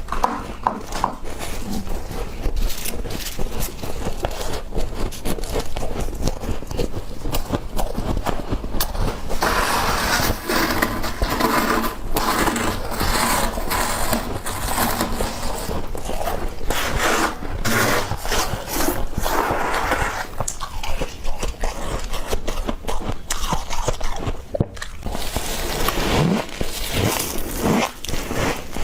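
Freezer frost being scraped and crunched: a dense, irregular run of scraping and crackling that grows louder and fuller for about ten seconds from around ten seconds in.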